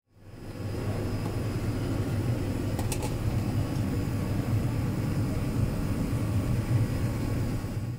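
Steady low mechanical rumble and hum, with a light click about three seconds in.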